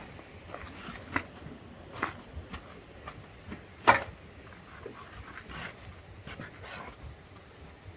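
Hands handling and opening a small geocache box: light rustling and scattered clicks, with one sharp click about four seconds in.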